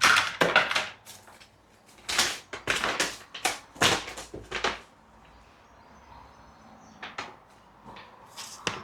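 Crinkling and clicking as the reversing-camera kit and its packaging are handled, in two busy runs of sharp crackles, then a few single clicks.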